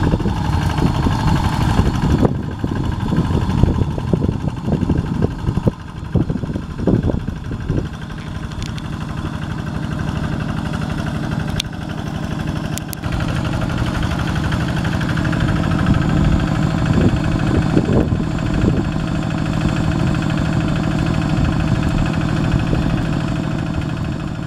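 Kubota RD85 single-cylinder diesel engine on a two-wheel hand tractor running steadily as it works through wet paddy mud. Irregular knocks cut across it during the first several seconds, and it gets louder about halfway through.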